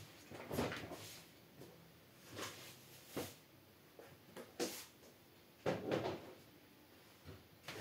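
Irregular brief knocks and rustles, about half a dozen spread unevenly, from objects being handled.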